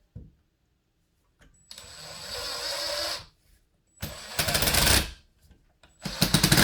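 Power drill driving screws into the blind mounting brackets, running in three short bursts that get louder, each starting with a thin high motor whine. A single knock comes just before the first burst.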